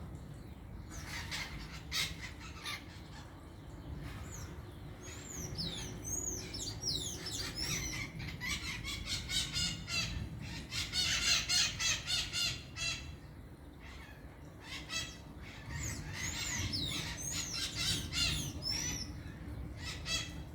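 A flock of maritaca parakeets calling: many short, sharp squawking chirps that overlap, thickest in the middle and again near the end, with quieter gaps between the bursts.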